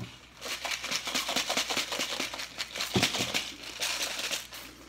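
Rapid crinkling and rustling of a plastic jelly bean packet being handled, with a single knock about three seconds in.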